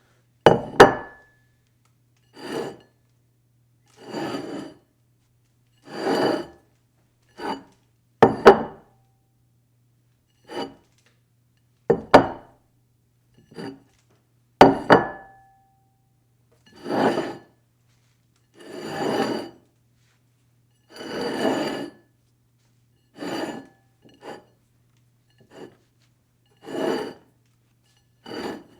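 Dishes slid across a table over and over: a run of short scrapes, each about half a second to a second long, one every second or two, some starting with a sharp clink that rings briefly.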